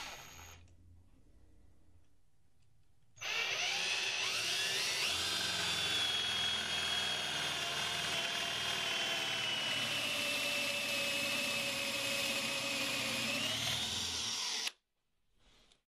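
Cordless drill spinning a 35 mm Forstner bit. A free-spinning run winds down in the first second, then after a pause of about two seconds a long steady run bores into wood. Its whine rises in pitch a couple of seconds into the run and dips slightly just before it cuts off suddenly near the end.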